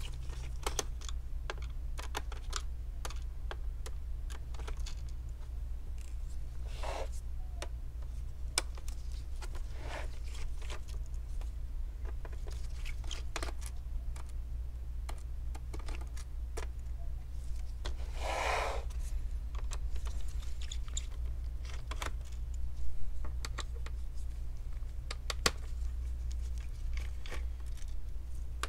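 Phillips screwdriver working screws out of a laptop's plastic back cover: scattered small clicks and taps, with a few brief scrapes, over a steady low hum.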